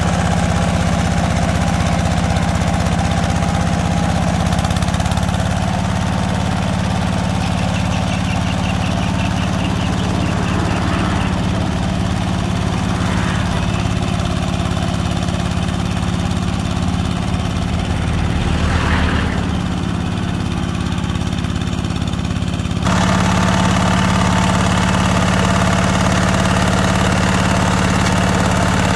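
Two-wheel hand tractor's single-cylinder engine running steadily under load as it drives steel cage mud wheels through a flooded rice paddy. The engine sounds more distant through the middle stretch and is close and louder again about two-thirds of the way in.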